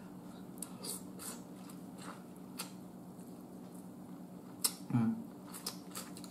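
Close-up eating sounds of boiled snow crab: scattered wet clicks and smacks as the meat is pulled from the leg and chewed, with a louder short suck on the crab-leg shell about five seconds in. A faint steady low hum sits underneath.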